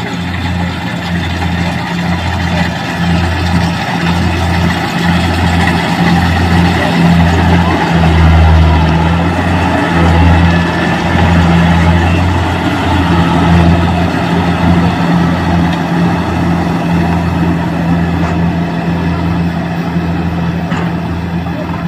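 Kubota DC-68G combine harvester running steadily while harvesting rice: a deep, continuous diesel drone with the clatter and rush of its cutting and threshing machinery over it, swelling a little in the middle.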